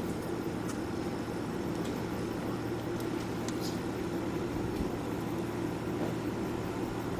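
Steady low background hum and murmur, with a few faint high clicks.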